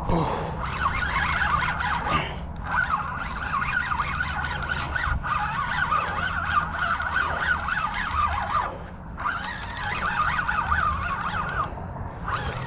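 Spinning reel whirring and buzzing under the load of a large striped bass on the line, in long stretches broken by short pauses about two seconds and nine seconds in.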